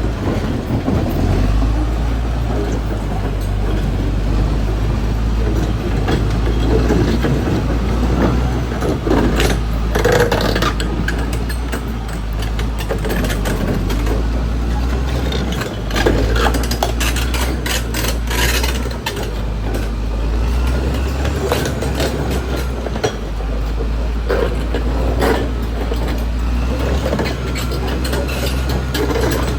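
Caterpillar D6R XL bulldozer's diesel engine running steadily with a deep drone, with scattered clanks and rattles, bunched about ten seconds in and again around sixteen to nineteen seconds in.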